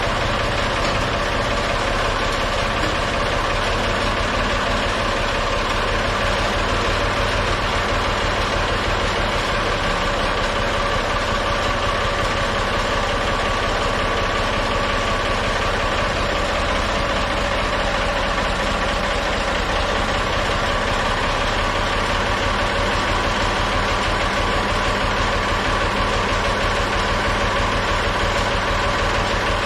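Backhoe diesel-era tractor engine idling steadily, with a constant drone and a steady whine and no change in speed.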